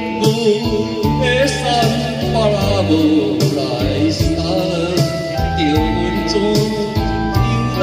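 A man singing a Taiwanese song into a microphone over an amplified karaoke backing track with a steady drum beat.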